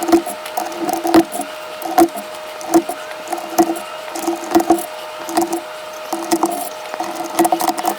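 Irregular sharp plastic clicks and knocks from mechanical keyboard switches and keycaps being pressed or handled, one to two louder clicks a second with smaller ticks between them.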